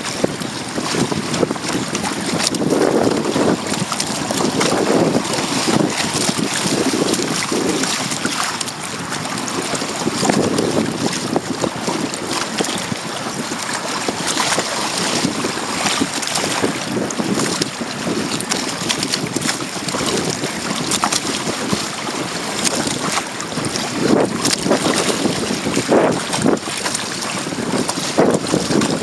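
Wind buffeting the microphone over water rushing and splashing along the hull of a Hobie Tandem Island sailing kayak under way. The noise is steady and rises and falls in uneven gusts.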